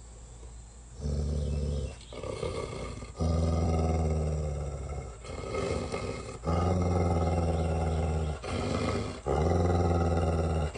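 A dog growling in long, low, steady growls, four of them lasting a couple of seconds each, with short pauses between.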